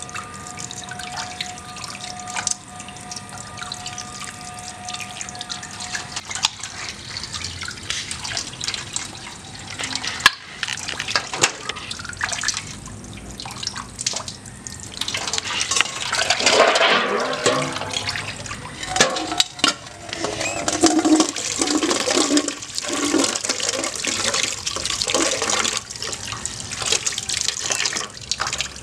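Water running from a tap and splashing over hands as they clean giant African snail meat, the splashing growing louder about halfway through.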